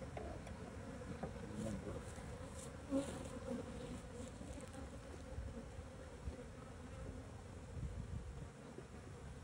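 Many honeybees from a colony being cut out of its nest, buzzing in a steady hum. A few faint knocks sound, one about three seconds in.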